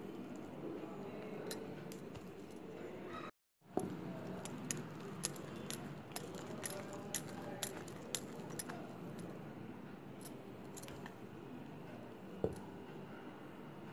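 Silicone spatula stirring thick pancake batter in a stainless steel bowl, with a steady stirring noise and many small clicks and taps of the spatula against the metal bowl; one sharper tap near the end. The sound cuts out briefly about three seconds in.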